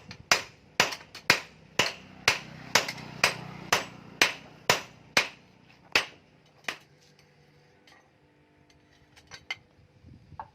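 Blacksmith's hand hammer striking the forged steel of an axe head, an even rhythm of about two blows a second for some six seconds, then one last blow. After that only a few light taps.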